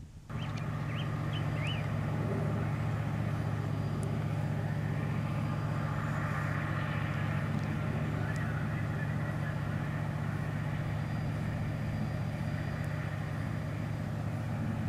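Tugboat diesel engines drone steadily across the water as they tow a loaded gravel barge. There are a few short bird chirps in the first two seconds.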